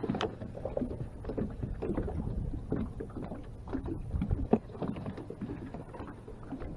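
Irregular small knocks and rustling from handling gear and a fish in a small fishing boat, with one sharper knock about four and a half seconds in.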